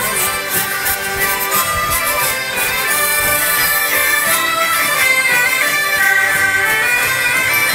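Folk ensemble of bagpipes, hurdy-gurdies, diatonic button accordions and fiddles playing a scottish together.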